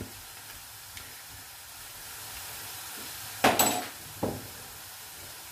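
Diced potatoes frying in olive oil in a pan, a steady sizzle. A brief louder noise breaks in about three and a half seconds in, with a smaller one just after.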